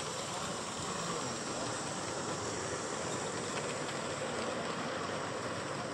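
Gauge 1 live-steam model locomotive running past with its train of wagons, a steady rolling and rushing noise of the wheels on the track.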